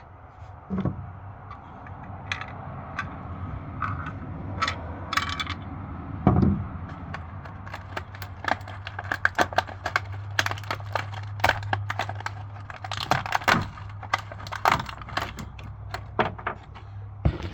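Many quick, irregular clicks and light knocks, like hard small objects being handled, growing busier about halfway through, over a steady low hum.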